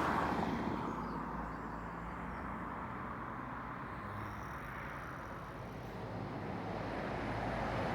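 Road traffic noise: a vehicle's sound fading away over the first couple of seconds, leaving a steady low rumble of more distant traffic, which swells again near the end as another vehicle approaches.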